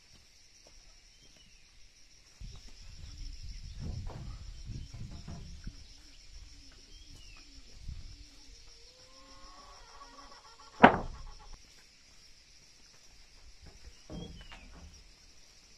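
Wooden planks being handled, with one sharp, loud knock of board striking board about eleven seconds in and a softer knock near the end. A steady high chirring of insects runs throughout.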